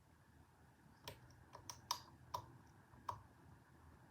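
Half a dozen faint, irregular clicks starting about a second in: a lock pick tapping pins and catching on the warding inside a Federal 95 padlock's paracentric keyway.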